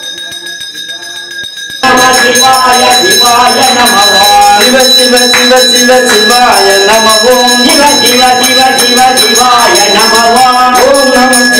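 Devotional singing with bells ringing steadily behind it, the whole mix jumping much louder about two seconds in.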